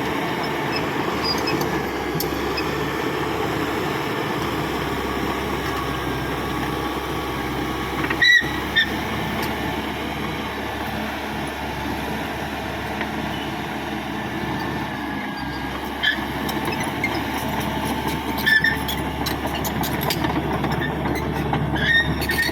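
Caterpillar D5K XL bulldozer's diesel engine running steadily while working, with a few sharp metallic clanks from the machine.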